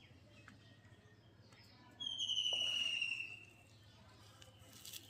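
A single clear whistled call, about two seconds in, lasting just over a second and falling slightly in pitch, over a faint steady low hum.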